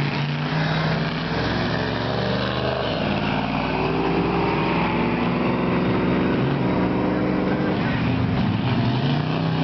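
GMC SUV's engine running hard under load as the truck drives through deep mud. Its pitch climbs for a few seconds from about three seconds in, then holds high.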